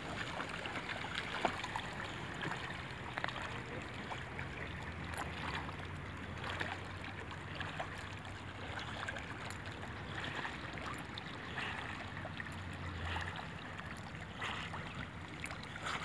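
Water sloshing and small splashes from a Staffordshire bull terrier paddling as it swims. A faint low hum underneath drops out near the end.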